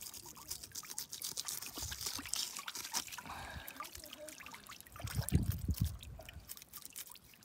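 A fillet knife slicing and scraping through a fish's skin and scales as it is filleted: a wet crackle of many small clicks, with a few low thuds about five seconds in.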